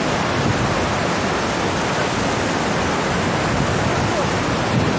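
Waterfall and the whitewater creek below it: a steady, even rush of water.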